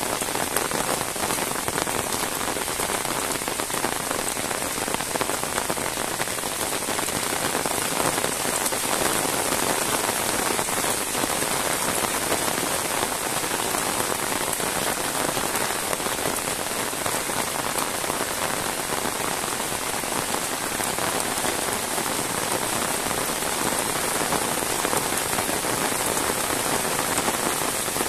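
Heavy rain falling steadily: an even, unbroken hiss of raindrops.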